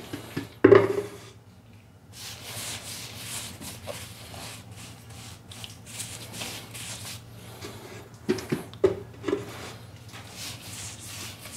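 Paintbrush scrubbing water-based primer onto a powdery plaster-filled ceiling patch: a steady bristle-rubbing hiss that starts about two seconds in, after a few knocks at the start.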